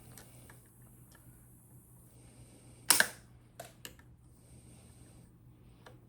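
Metal clicks from pliers working on a Daisy BB gun's jammed spring anchor: one loud sharp double click about three seconds in, then a few lighter clicks.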